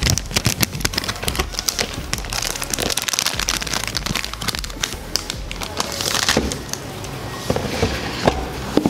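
Clear plastic shrink-wrap being torn off a sealed cube box and crumpled in the hands: a dense, continuous run of crackling and crinkling.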